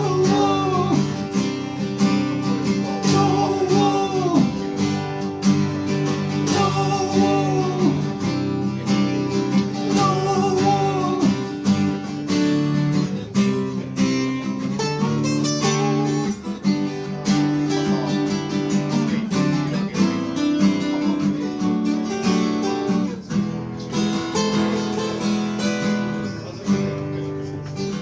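Live acoustic guitar strummed through an instrumental passage of a song. A wavering melody line runs over the chords for about the first half.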